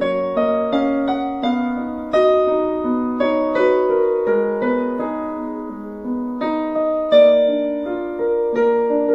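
Slow, gentle solo piano music: notes struck one after another over low chords, each ringing and fading before the next.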